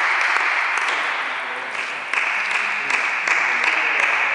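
Applause from a small crowd of spectators and teammates, a steady patter of hand claps that swells about two seconds in and again a second later.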